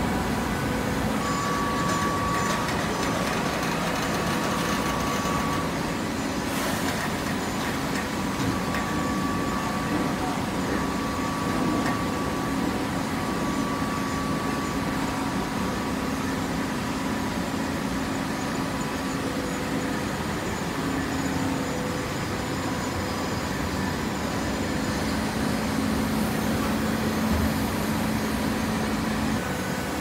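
Hydraulic horizontal baler running: a steady machine hum with a few held tones and no distinct strokes or impacts.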